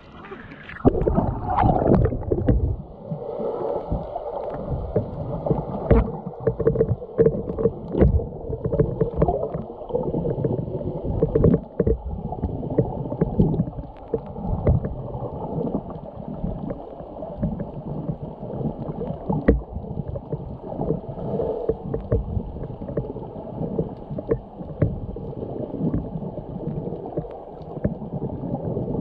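Muffled underwater sound picked up by an action camera in its waterproof housing: a dense rumble of moving water with frequent small clicks and knocks.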